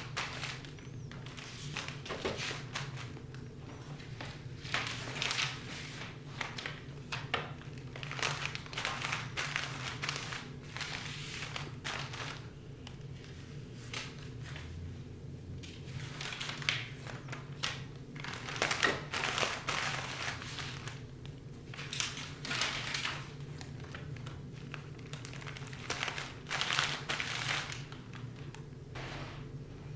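Packaging crinkling and rustling in irregular bursts, with small taps, as items are handled and wrapped by hand.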